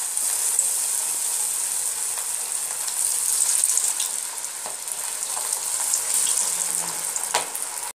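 Marinated chicken kabab pieces deep-frying in hot oil in a kadai: a steady high sizzle with scattered pops and crackles. There is a louder crackle near the end, then the sound cuts off suddenly.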